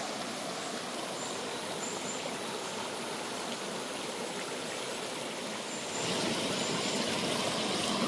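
Steady rush of a mountain stream's flowing water, a little louder from about six seconds in.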